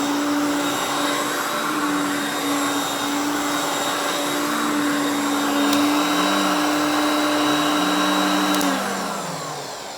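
Hoover Concept One U3101 self-propelled upright vacuum running loud and steady, a lower tone underneath wavering up and down. Near the end it is switched off with a click and the motor winds down, its pitch falling. The owner thinks it could use a new belt, as the brush roll seemed to want to stall.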